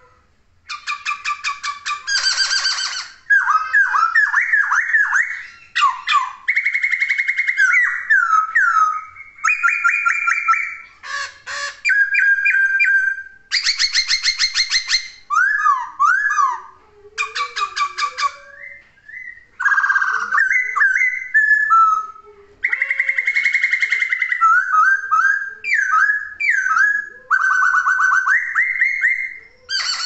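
Caged black-throated laughingthrush (poksay) singing loudly and continuously. Whistled notes slide up and down, mixed with fast rattling trills, in phrases broken by brief pauses.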